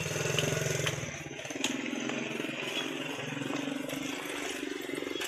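A small engine running, its pitch rising and falling unevenly, with a few light clicks.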